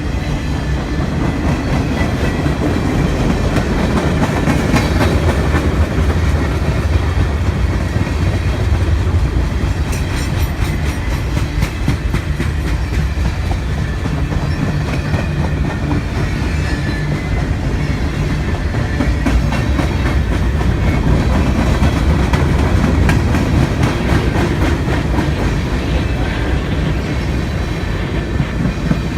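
A train rolling past: a steady, loud rumble with repeated clicks of wheels running over the rails.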